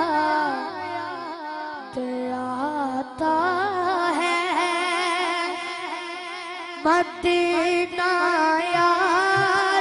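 A boy singing a naat solo into a microphone: a wordless, heavily ornamented melody of wavering long-held notes, with short breaths between phrases.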